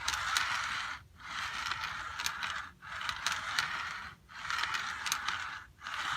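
Lionel O27 caboose's metal wheels rolling slowly along Lionel FasTrack, pushed back and forth by hand. It makes a scraping rumble in strokes of about a second and a half, with brief pauses between and fine ticks along the way.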